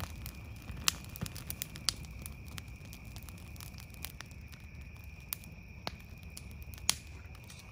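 Bonfire of dry brush and small Christmas trees burning, crackling under a low rush of flame, with sharp pops every second or so.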